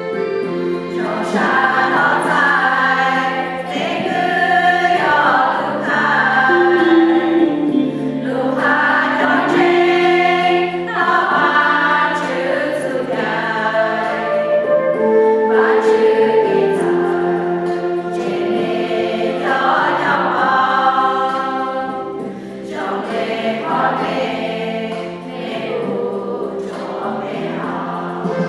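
Many voices singing a hymn together in phrases over steady held low notes of accompaniment.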